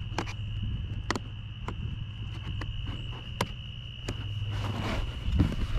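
A steady, high-pitched insect trill, typical of crickets in summer grass, with scattered sharp clicks and taps from a cardboard box being handled.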